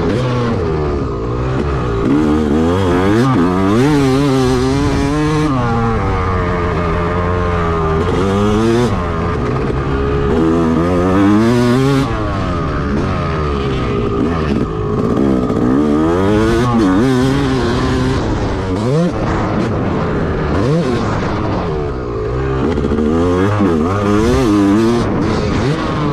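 Yamaha YZ250 two-stroke motocross bike being ridden hard. The engine revs up and drops back again and again as the throttle is opened and closed.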